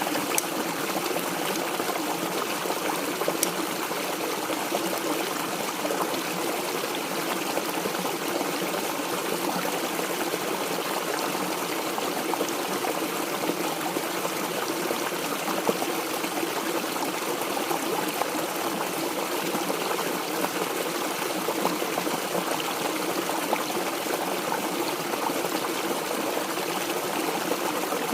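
Mountain stream water trickling and splashing steadily over rocks, an even rushing with fine bubbling detail.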